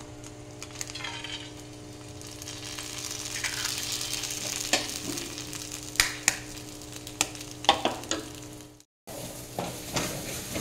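Eggs sizzling in hot oil in a frying pan as they are cracked in, with sharp clicks of the eggshells being cracked and broken open.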